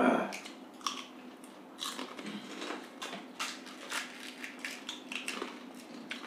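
Crisp pani puri shells being cracked open by hand and crunched while chewing: a string of short, irregular crackles and bites, with a louder burst right at the start.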